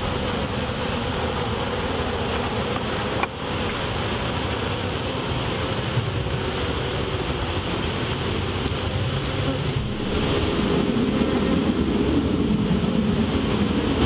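Honeybee colony buzzing around an open top-bar hive and a comb of bees lifted from it: a steady, dense hum that grows louder for the last few seconds.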